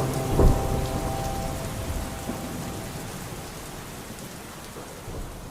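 Pouring rain, an even steady hiss, with a single low crack of thunder about half a second in; the rain slowly fades out.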